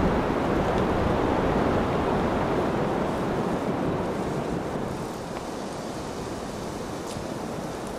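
Steady rushing wind noise, as of wind on the microphone, easing a little about five seconds in.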